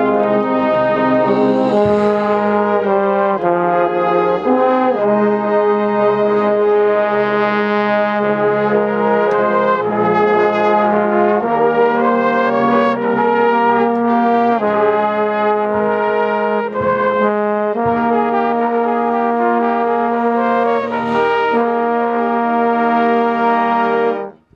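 Marching band brass with mellophones and trumpets in front, playing loud held chords that move to a new chord every second or two. The whole band cuts off together just before the end.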